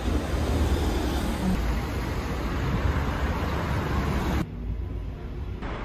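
Road traffic noise on a rainy city street: a steady hiss with a low rumble from passing cars. About four and a half seconds in it drops to a quieter, duller traffic sound.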